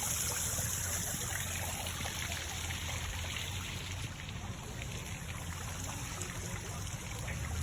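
Water from a fountain trickling and splashing steadily.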